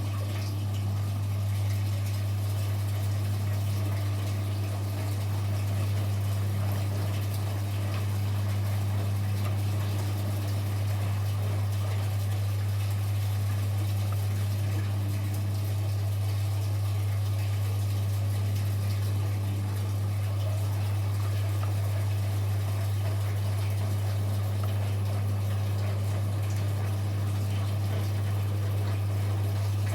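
Washing machine running: water swishing and flowing over a steady low hum throughout.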